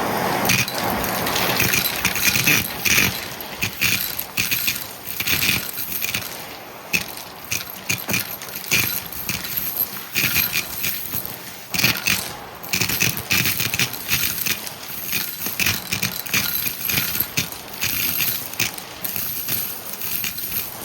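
Shark vacuum cleaner running and sucking up a small mess of debris, which rattles and crackles as it is pulled into the cleaner. Over the steady hiss there are dense irregular clicks, swelling and dipping as the cleaner is pushed back and forth.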